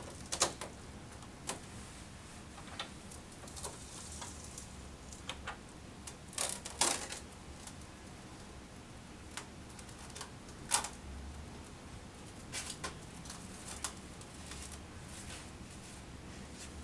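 Clear PVC cling film being pulled from its dispenser box, cut and stretched over a bowl: irregular crinkles, snaps and clicks of the plastic, the loudest about half a second in, near seven seconds and near eleven seconds.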